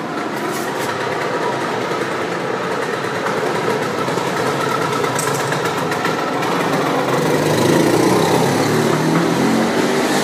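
Helicopter flying low overhead, a loud steady engine and rotor noise that grows louder to a peak about eight seconds in.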